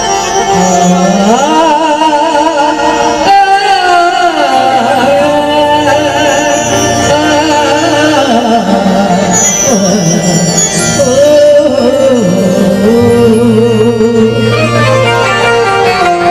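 Music: a voice singing long, wavering melodic notes over instrumental accompaniment, with a low sustained note coming in about four seconds in.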